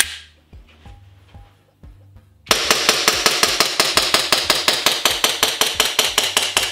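CO2 gas-blowback airsoft Glock 17 (Umarex / Elite Force, made by VFC): the slide is racked with one sharp clack. About two and a half seconds in, a fast, even string of shots begins, each with the snap of the blowback slide. The CO2 cartridge is starting to run low, which slightly changes the sound of the shots.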